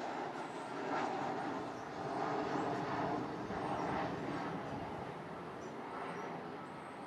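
R46 subway train's wheels rumbling on the rails as it runs away into the distance, with a few swells early on before the sound slowly fades.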